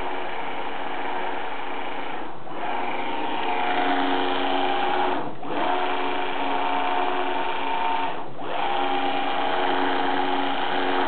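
DC servo motor, driven by a PWM H-bridge amplifier, running at speed with a steady whine of several pitches. The whine dips briefly about every three seconds as the motor stops and reverses direction.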